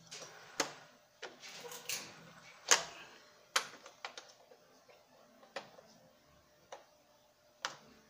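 Scattered sharp metallic clicks and taps, about nine at irregular intervals, as a wrench and hands work at the drive pulley nut of a washing machine's transmission; the loudest knock comes a little under three seconds in.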